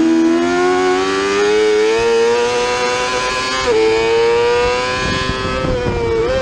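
Yamaha R6's inline-four engine revving high on track, pulling hard with its pitch rising, then snapping through an upshift about halfway through and climbing again. Near the end the tone levels off and jumps up sharply in a throttle blip as the rider shifts back down a gear.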